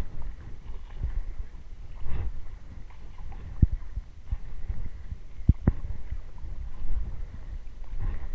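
Footsteps wading through shallow water, sloshing irregularly with each stride, with three sharp knocks in the middle.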